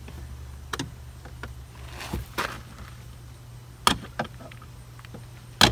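Several sharp clicks and taps of a screwdriver against the plastic trim around a car's interior door handle, the loudest near the end, with a brief rustle of handling in between, over a steady low hum.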